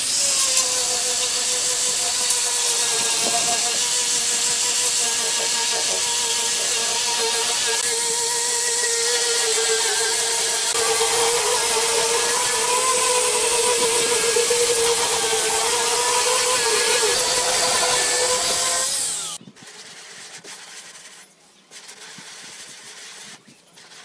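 Electric angle grinder fitted with a sanding disc, running with a steady whine while it sands end-grain pallet-wood blocks, with a rasping of the disc on the wood. It cuts off suddenly about 19 seconds in.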